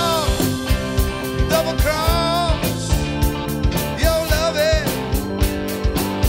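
Rock band playing live in an instrumental stretch: drums keeping a steady beat under bass, electric guitar and keyboard, with a lead melody that slides up and down in pitch twice.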